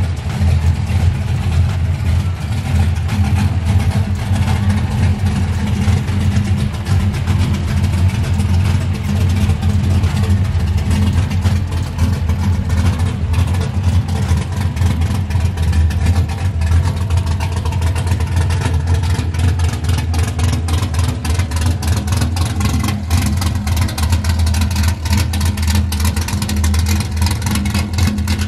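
LS V8 engine swapped into a Mazda RX8, idling steadily through its exhaust with no revving.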